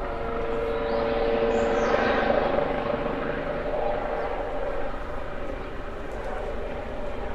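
Helicopter circling: a continuous drone with a steady hum, swelling louder about two seconds in, then easing off.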